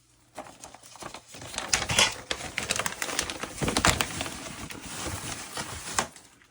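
A new furnace filter being handled: irregular rustling and crackling with many sharp clicks and knocks, dying away near the end.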